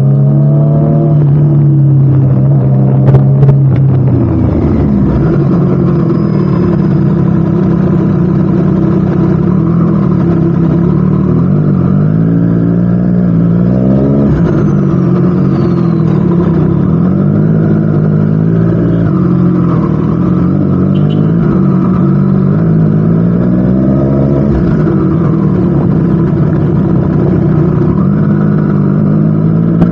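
Triumph Street Triple RS inline three-cylinder engine running through a Spark slip-on exhaust, its pitch rising and falling several times as the revs change. A few sharp clicks about three seconds in.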